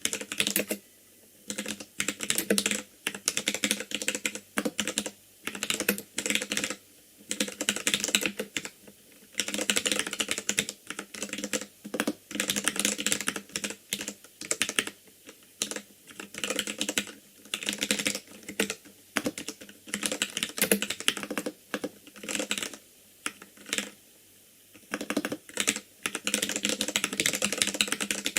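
Typing on an ikbc Poker II mechanical keyboard with Gateron Red linear switches: fast runs of keystroke clacks in bursts of a second or two, broken by short pauses.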